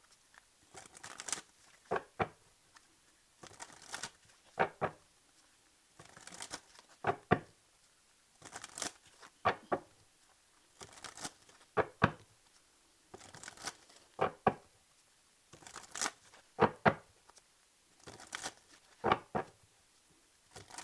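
A deck of tarot cards being shuffled by hand: a brief rustle and a few sharp card snaps, repeated about every two and a half seconds.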